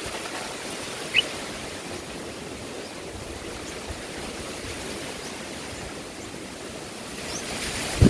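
Steady outdoor hiss with one short, high, rising bird chirp about a second in, and a few faint high peeps later.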